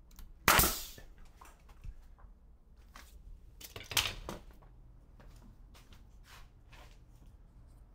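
Pneumatic finish nailer firing once about half a second in, a sharp bang with a short puff of air, driving a finish nail through the door jamb to hold it in place. A second, slightly quieter knock comes about four seconds in, with small clicks and knocks of handling around it.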